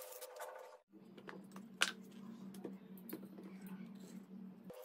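Light clicks and taps of wooden parts knocking together as a hand-made wooden toy rifle is handled, with one sharper click about two seconds in, over a steady low hum. A hissing noise cuts off abruptly about a second in.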